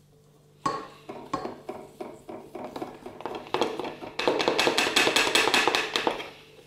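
A spatula knocking and scraping a plastic bowl, emptying icing sugar into a stainless steel stand-mixer bowl. It starts with scattered knocks about half a second in, then past halfway becomes a louder, quick run of taps, about seven a second, before stopping near the end.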